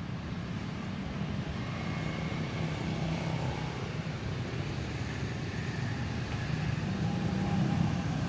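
Road traffic: a steady low hum of passing vehicles, growing a little louder near the end.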